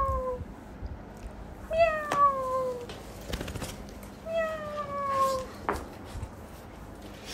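Cat meows made by the owner rather than a real cat: the same long meow, falling in pitch, repeated about every two and a half seconds. The tail of one is heard at the very start and two full ones follow, with a few light clicks between.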